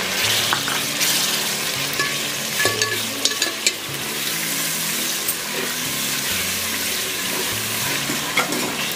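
Chopped tomatoes being stirred into an onion-and-potato masala sizzling in hot oil in a pot. The frying keeps up a steady hiss, broken by occasional scrapes and clinks of the stirring spoon against the pot, clustered about three seconds in and again near the end.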